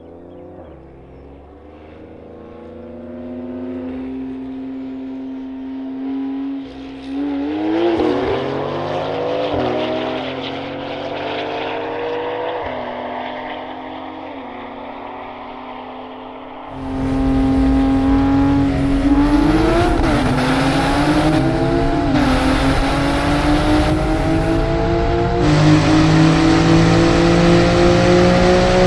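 Porsche 911s with twin-turbo flat-six engines, a tuned 992 Carrera 4S and a 991 Turbo S, accelerating flat out in a 30–140 mph roll race. The engine note climbs and drops back with each quick dual-clutch upshift. About halfway through it turns into the much louder engine heard inside the 992's cabin, pulling through several more upshifts.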